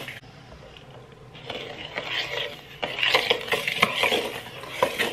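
A metal fork scraping and clinking against a bowl while brownie batter of sugar and egg is stirred by hand. The quick, uneven scraping starts about a second and a half in.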